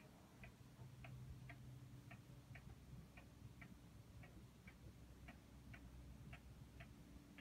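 Old octagonal wall-hung pendulum clock ticking faintly and evenly, about two ticks a second.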